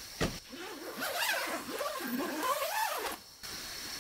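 Zipper on a rooftop tent's fabric door being pulled in a long run of rasping strokes that rise and fall in pitch, stopping abruptly about three seconds in. A single knock comes just after the start.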